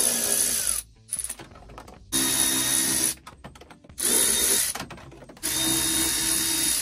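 Power drill/driver running in four short bursts of about a second each, backing out the bolts on a truck's steering column cover.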